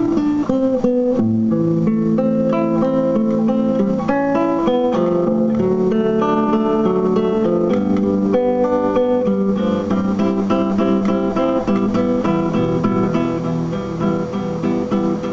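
Solo plucked string instrument playing an instrumental passage: a melody of picked notes over strummed chords, with no singing.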